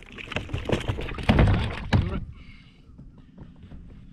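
Knocking, rustling and thumping as a caught fish is handled on a plastic kayak, loudest at a heavy thump about a second and a half in, then dying down to a few light clicks.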